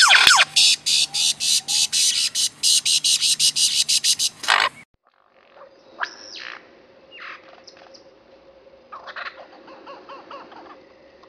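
Superb lyrebird mimicking a mechanical, alarm-like sound: a loud, fast series of high pulses, about five a second, that cuts off sharply after about four and a half seconds. After a short gap come a few quieter short bird calls over a faint steady hum.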